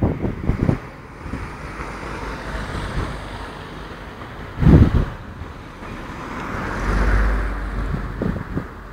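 Wind blowing across the microphone: a steady hiss and rumble, with a sharp buffet about halfway through and a slower, louder gust a couple of seconds later.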